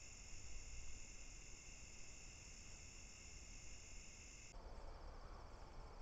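Crickets singing at night in a steady, faint chorus. About four and a half seconds in it changes abruptly to a thinner chorus with a pulsing trill.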